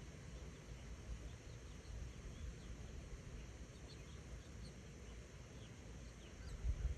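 Faint short bird chirps, scattered through, over a steady low rumble that swells briefly near the end.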